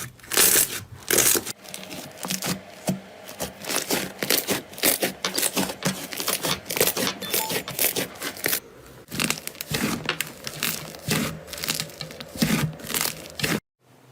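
Slime being squeezed, stretched and pressed by hand, making dense crackling, clicking and sticky popping sounds. The sound breaks off briefly near the end.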